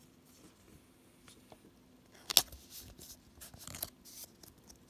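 Pokémon trading cards being handled: quiet at first, then a sharp tap about halfway through, followed by a run of soft rustles and clicks.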